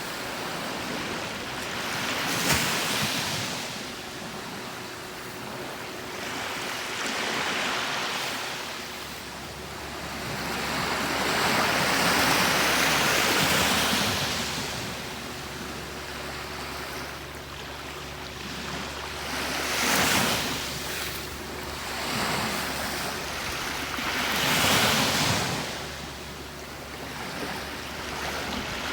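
Gentle sea waves breaking and washing up a beach, the surf swelling and fading every few seconds.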